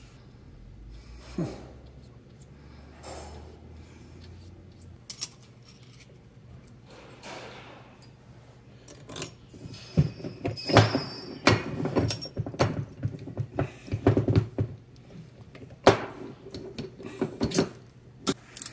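Metal brake parts clinking and knocking as new steel pins are fitted into a Jaguar XK150 rear brake caliper carrier and handbrake lever. A few faint clicks at first, then from about halfway a quick run of clicks and knocks with a brief metallic jingle.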